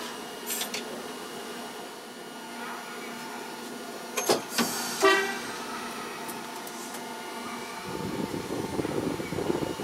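Fukui Railway 770-series tram running slowly on street track, heard from behind the driver: a steady running hum, a click and then a short horn toot about five seconds in, and a rumble of wheels on the rails rising near the end.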